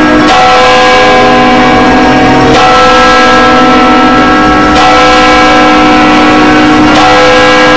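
Opening theme music of loud, long-held chords that change about every two seconds, with no beat.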